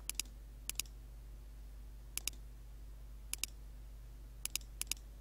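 Computer mouse button clicking: about six quick pairs of sharp clicks, spaced irregularly, over a faint steady electrical hum.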